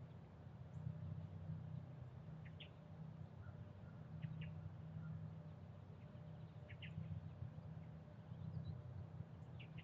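Faint short bird chirps, in pairs, every couple of seconds, over a steady low rumble.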